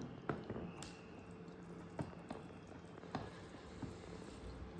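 Fingers mixing biryani rice with egg curry on a ceramic plate: soft squishing, with a few light clicks against the plate.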